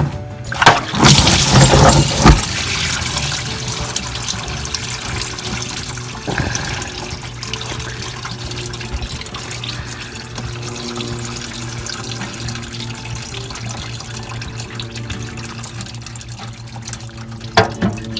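Transmission fluid pouring from a Jeep Wrangler JK's tilted, partly unbolted transmission pan into a drain pan, a steady stream of splashing liquid. A few loud knocks come in the first two seconds.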